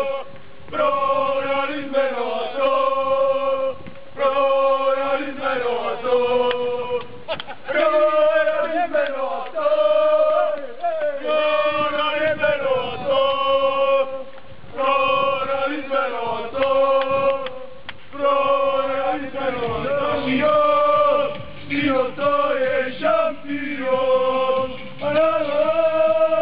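A group of men singing a football chant together, in short repeated phrases with brief breaks between them.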